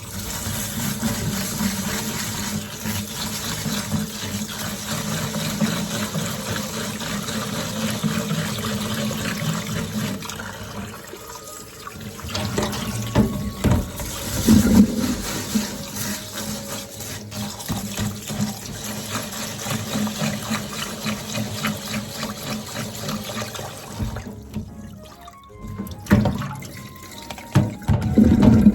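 Water running steadily from a tap into a sink, with louder spells about halfway through and again near the end.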